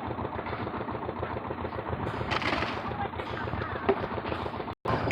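Machine engine running at a site, with a rapid, even chugging of many beats a second; the sound drops out for a moment near the end.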